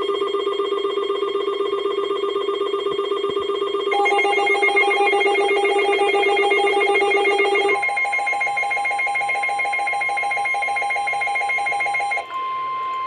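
Weather radio alert: a loud trilling electronic alarm that shifts pitch about four seconds in and again near eight seconds, when a steady tone just above 1 kHz joins it. Near the end only that steady tone is left: the NOAA Weather Radio 1050 Hz warning alarm tone, which signals that a warning message follows.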